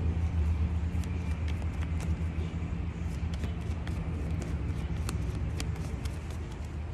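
Tarot cards being shuffled by hand, light scattered clicks and slaps of the cards, over a steady low motor rumble.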